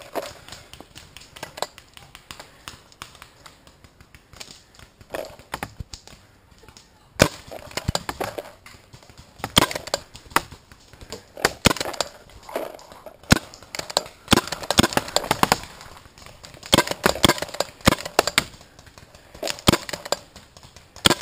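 Paintball markers firing: sharp irregular pops, a few scattered at first, then from about seven seconds in frequent rapid strings of shots to the end.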